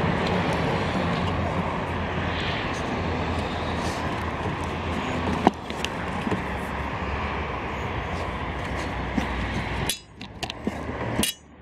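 Steady low vehicle engine hum that drops away suddenly near the end, with one sharp click about halfway through.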